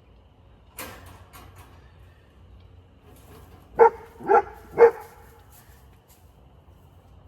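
A dog barking three times in quick succession, about half a second apart.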